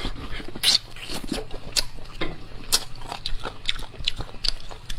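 A person eating bone marrow at close range: wet slurping and sucking as the marrow is drawn out of the bones, with lip smacks and chewing, several irregular smacks a second.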